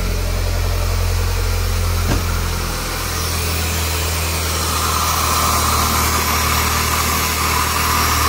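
Chrysler PT Cruiser GT's turbocharged 2.4-litre four-cylinder idling steadily. About halfway through, a hiss of rushing air comes in: the intake hose is off the throttle body and the turbo is blowing a lot of air out of the open pipe, which sounds like a big vacuum leak.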